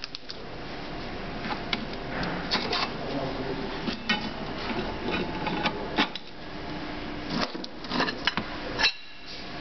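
Metal parts and hand tools clinking and knocking at irregular intervals, over a steady mechanical hum.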